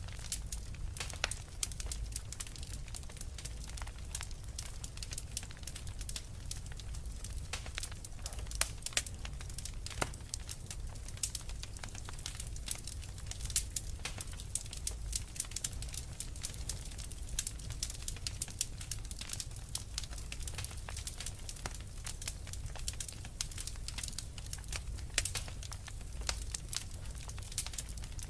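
Wood fire crackling, with frequent irregular sharp pops and snaps over a steady low rumble.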